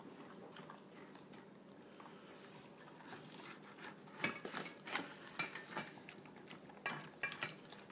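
Dogs eating out of stainless steel bowls, with several sharp clinks of metal bowls being knocked about, mostly in the second half.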